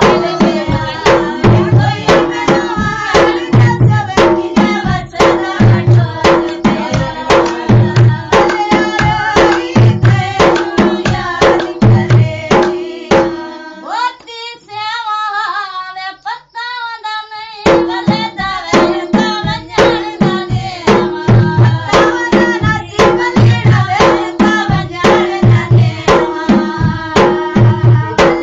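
Dance music: a song with a fast, steady drum beat under a singing voice and melody. About halfway through, the drums drop out for a few seconds, leaving only a wavering melody line, and then the beat comes back.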